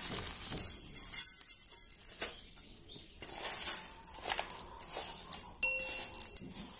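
Dry ground corn rattling as it is poured from a plastic bag into a steel bowl, followed by the grain-and-rice feed being stirred by hand, in rattly bursts. A brief electronic chime sounds near the end.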